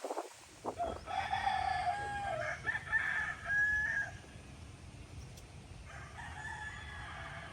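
Rooster crowing: one long crow starting about a second in and lasting about three seconds, then a second, fainter crow near the end.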